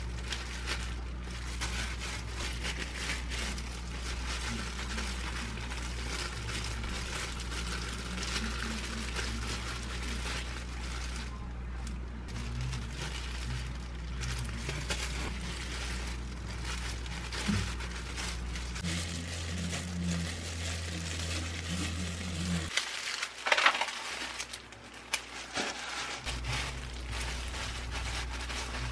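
Disposable plastic gloves crinkling and rustling as hands press tofu rice and seaweed onto fried tofu pouches, over a steady low hum. A few louder, sharper crackles come about two-thirds of the way in.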